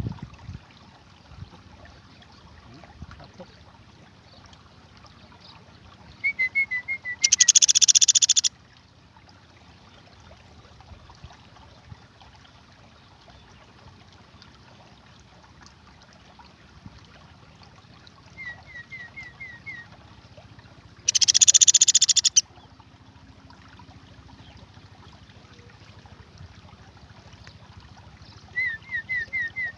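Young Sunda pygmy woodpecker (pelatuk beras) calling: three short series of about five quick, high, falling notes, and twice a loud, dry, buzzing rattle lasting over a second.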